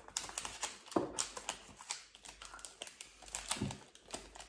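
Tea-bag wrapper crinkling and crackling in quick small clicks as it is handled and bitten open, with two dull knocks, one about a second in and one near the end.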